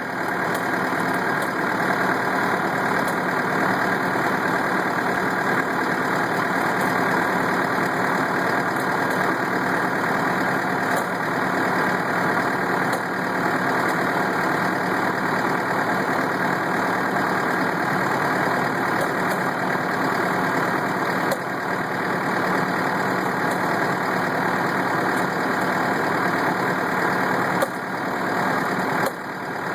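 Engine of a LaPorte grape weed sprayer rig running steadily while the sprayer operates, with a few brief dips in level near the end.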